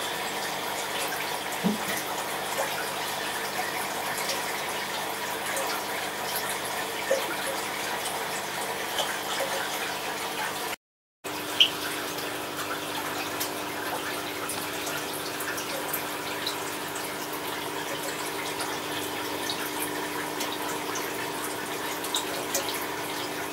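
Steady running water and pump hum from an aquarium's filter, with a few faint ticks. The sound drops out briefly about halfway through.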